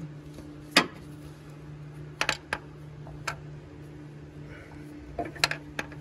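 Scattered sharp metal clicks and clinks of a ratchet and 10 mm socket snugging up bolts on a transmission-mounted neutral safety switch, the loudest about a second in and a quick cluster near the end, over a steady low hum.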